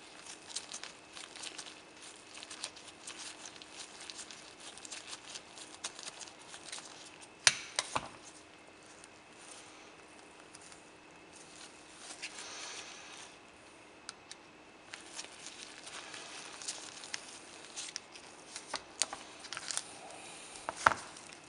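Faint clicks and ticks of a screwdriver and steel revolver parts as the ejector rod screw is backed out and the ejector rod housing is worked loose, with a few sharper clicks and the rustle of nitrile gloves.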